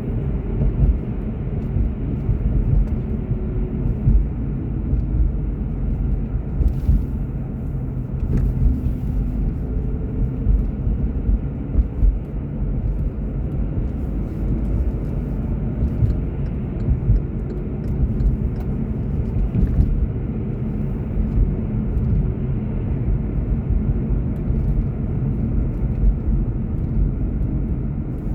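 Car driving at a steady pace: continuous low road and engine rumble, with a faint engine note that drifts slowly up and down.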